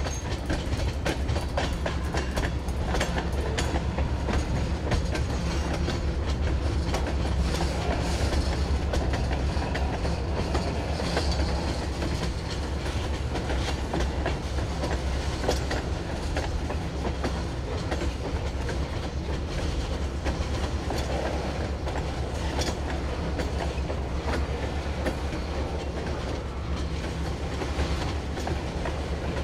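Freight train rolling along behind diesel locomotives: a steady low engine rumble with the wheels clicking over the rail joints.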